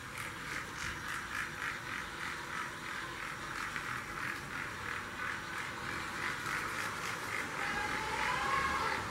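Battery-powered toy train running, with a steady rhythmic chugging of about three to four beats a second and a short rising tone near the end.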